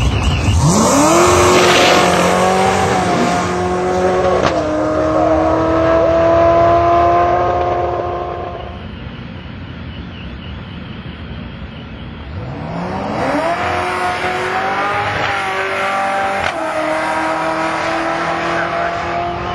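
Vortech S-Trim supercharged Ford Mustang launching at full throttle down a drag strip. The revs climb steeply, drop at a gear change about four seconds later and carry on until the run fades away. A second hard launch begins about two-thirds of the way through, again rising in pitch with a shift a few seconds after it.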